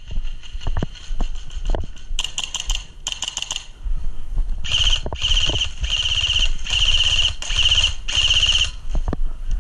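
Airsoft rifle firing rapid full-auto bursts: one burst about two seconds in, then a string of about six bursts with short pauses between them from about five seconds in. Footsteps on a dirt trail come before the firing.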